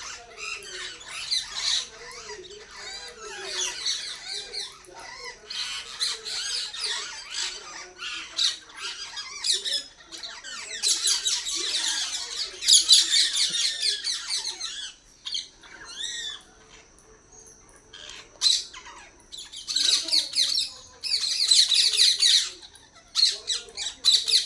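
A flock of parakeets calling, many harsh overlapping screeches coming in bursts, loudest about halfway through and again near the end, with a quieter spell in between.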